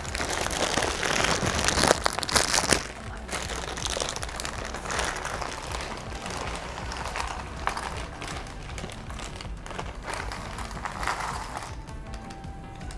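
Clear plastic bag crinkling as it is pulled open, loudest in the first few seconds, then thin cardboard jigsaw puzzle pieces spilling and rattling out of the bag onto a tabletop.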